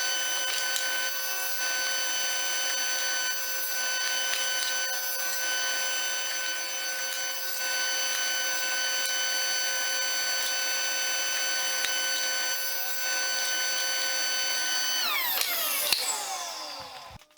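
Electric power tool running at a steady high speed, then switched off about three seconds before the end, its pitch falling as the motor winds down and stops.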